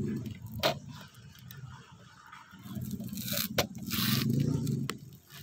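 Scraping and sharp clicks as the plastic cab door of a miniature truck is handled and pushed shut, with two distinct clicks and short scrapes. A low rumble rises and falls underneath.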